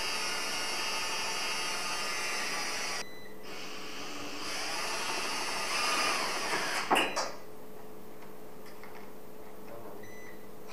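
Cordless drill running in two bursts, a steady whir for about three seconds, then after a short pause a second run that builds up and ends in a sharp click about seven seconds in.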